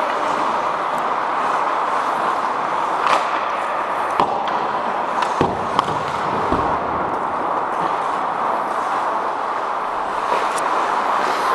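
Ice hockey play heard from on the ice: steady skating and rink noise, with several sharp stick-and-puck clacks between about three and six seconds in.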